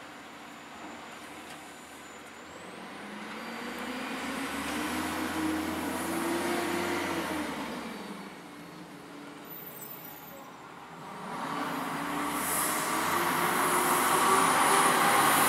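Autocar garbage truck's diesel engine revving up, holding and dropping back, then revving up again about eleven seconds in and growing louder toward the end.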